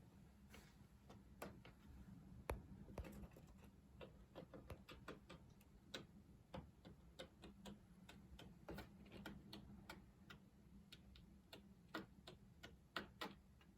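Birds pecking at ice on a window, a faint run of quick, irregular taps.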